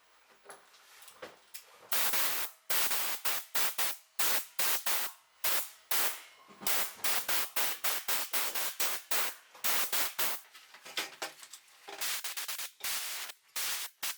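Compressed air hissing out of an air tool on the compressor's hose in many short, irregular bursts, as the trigger is pulled and released again and again.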